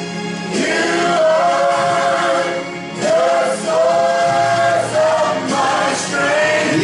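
Gospel choir singing in long held notes that waver slightly.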